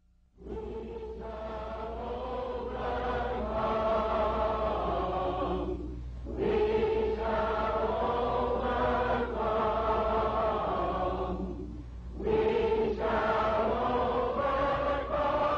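A choir singing slowly in long held phrases, with short breaks about six and twelve seconds in, over a steady low hum of an old recording.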